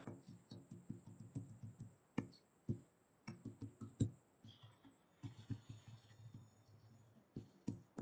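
Faint scattered clicks over a low, broken murmur, heard over a video-call line.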